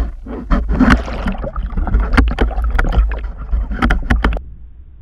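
Underwater recording of a pike struggling with a dead bait on a rig. A quick run of sharp knocks and clicks plays over a low churning rumble as the rig and camera are jostled. It stops suddenly about four seconds in.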